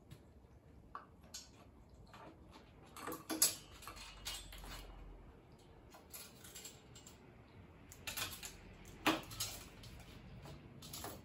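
Metal clinks and rattles of a chainsaw's guide bar and saw chain being handled and fitted, in irregular bursts with two louder knocks about a third of the way in and near the end.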